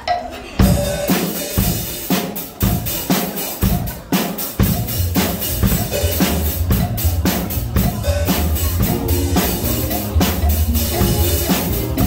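Acoustic Tama drum kit played by a child in a steady beat of bass drum, snare and cymbals. Backing music with a bass line comes in underneath about four and a half seconds in.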